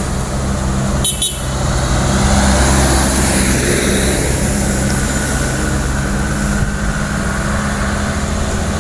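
Truck engine running hard under load on a steep climb, getting louder from about two seconds in, with a brief sharp noise about a second in.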